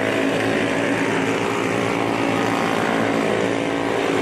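Junior sprint car engines running at speed as the cars lap the track, a steady drone of overlapping engine notes.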